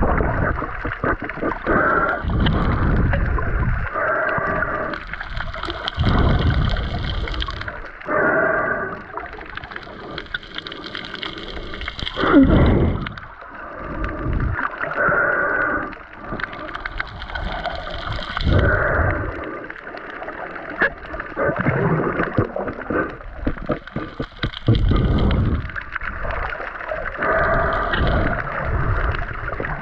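Sea water sloshing and bubbling around the camera in the sea, in surges every two to three seconds, some with a bright hiss of bubbles.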